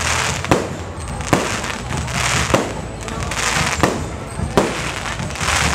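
Aerial fireworks bursting overhead one after another: a sharp bang about once a second, with a hissing crackle of falling stars between the bangs.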